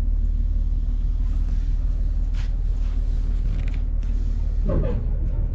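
Steady low rumble of a river passenger ship's engines, heard from its open deck while under way.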